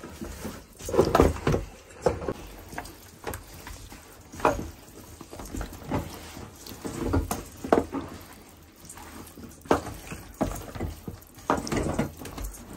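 Hands mixing raw fish pieces in oil and masala inside a metal bowl: irregular wet handling noises, with light knocks and scrapes against the bowl.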